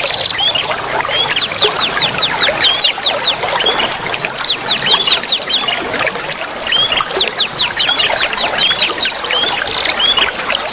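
Birdsong therapy recording: a bird repeats quick runs of high, falling whistled notes every few seconds over steady trickling water, with other birds chirping.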